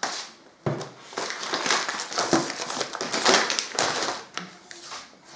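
Packaged food being handled and taken out of a pantry cupboard: plastic wrappers rustling and crinkling, with several knocks and clicks as items are moved and set down.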